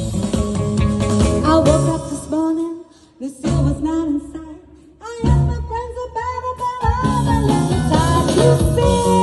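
Band playing a rock and roll song with a lead vocal, with guitar and bass. The band drops out briefly twice, about three and five seconds in, before coming back in full.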